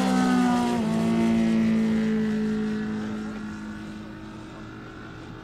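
Radial engine of a large scale-model Yakovlev Yak-55M aerobatic plane running in flight. Its note drops in pitch about a second in, then fades steadily as the plane flies off.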